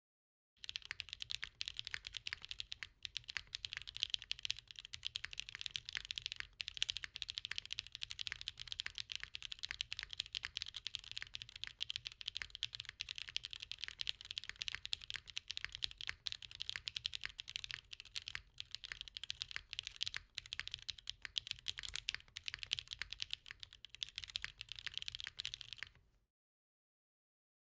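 Continuous fast typing on a Monokei Hiro mechanical keyboard with stock Gateron Raw switches, a polycarbonate plate, a brass bottom and no foam inside. The typing starts about half a second in and stops shortly before the end.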